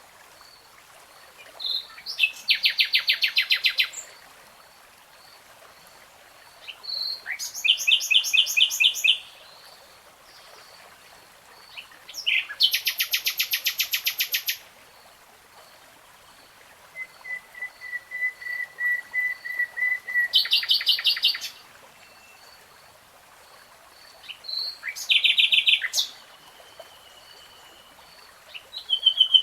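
Common nightingale singing: phrases of rapid, high trills and repeated notes, each a second and a half to three seconds long, separated by pauses of two to three seconds. Midway comes a slower series of pure whistled notes that swell in loudness.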